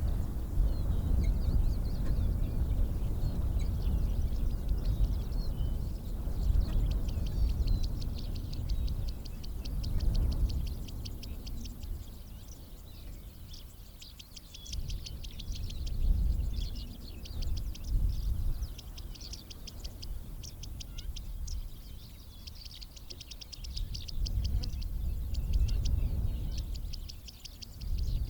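Birds chirping in quick, rapid runs of high notes, thickening from about eight seconds in, over a low rumble that rises and falls.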